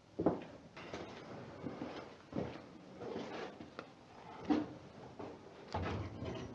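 Scattered knocks, clunks and scrapes of hand work with tools and fittings on overhead plumbing pipes, the sharpest knock just after the start and more every second or so.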